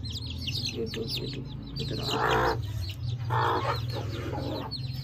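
Desi chicks peeping constantly, a rapid stream of high, falling cheeps, as they peck grain from a hand. Two short, harsh, noisy sounds stand out about two seconds and three and a half seconds in.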